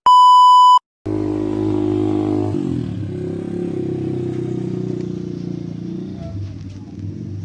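A television colour-bar test tone: a loud, steady 1 kHz beep lasting under a second, then cut off. After a brief silence comes a steady low droning hum with several pitched tones, which shifts slightly about two and a half seconds in and stops suddenly at the end.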